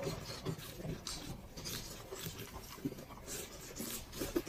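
People chewing and munching lettuce leaves wrapped around meat, with scattered small crunches and mouth clicks.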